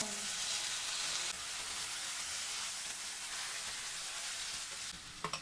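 Marinated chicken breasts sizzling in hot olive oil in a frying pan, a steady hiss that eases a little about a second in and dies down near the end, where a couple of sharp clicks sound.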